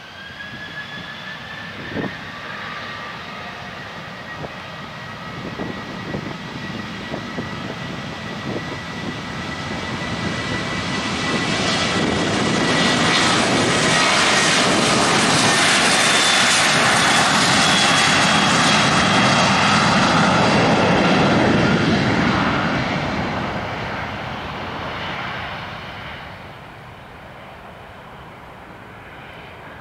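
Southwest Airlines Boeing 737's twin jet engines spooling up to takeoff power with a rising whine, then the jet on its takeoff roll growing loud as it passes close by and fading as it moves away down the runway. A single knock sounds about two seconds in.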